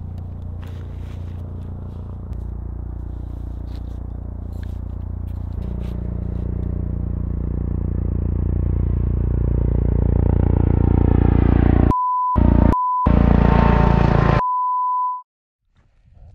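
Helicopter flying in, its low rotor thudding growing steadily louder. Near the end several censor beeps cut in over swearing.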